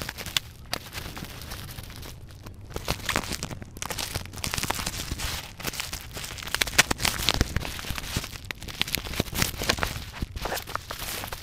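Scissors snipping through a black bubble-wrap mailer bound in clear packing tape, with the plastic crinkling and crackling in quick, irregular bursts as hands pull the wrap open.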